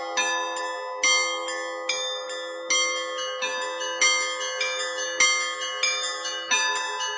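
Russian Orthodox church bells being rung (zvon): a larger bell hums steadily underneath while smaller bells are struck in a quick, uneven rhythm, about one to two strikes a second, each stroke ringing on.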